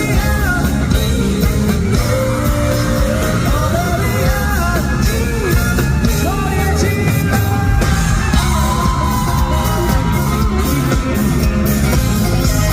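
Live rock band playing with a singing voice: guitars, bass and drums under a sung melody, loud and steady throughout.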